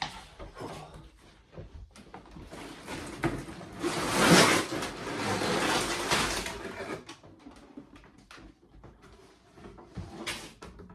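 Sealed plastic bags of Lego pieces rustling and knocking together as they are handled and lifted out of a cardboard box, with a louder stretch of rustling about four to six seconds in.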